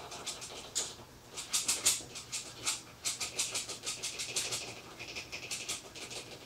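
Annatto seeds rattling through a plastic funnel into a plastic water bottle: a quick, irregular run of light ticks and rustles.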